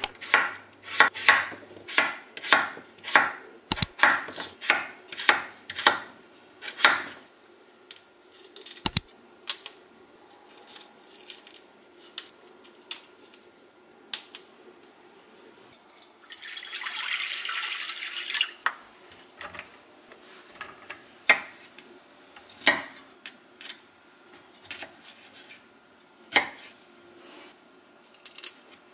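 Knife chopping on a cutting board, about two strokes a second for the first seven seconds. After that come scattered kitchen knocks and clicks, and a short hissing rush lasting about two seconds midway.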